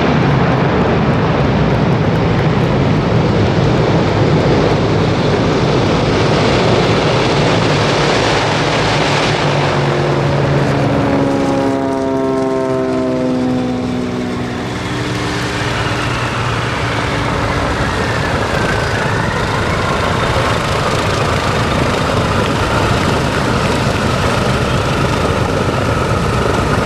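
A Douglas DC-6 landing, its four radial piston engines and propellers running loud, with a falling pitch a little under halfway through.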